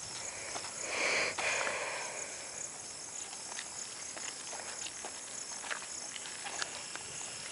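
Insects chirring steadily in the background, with a brief louder sound about a second in and a few faint ticks.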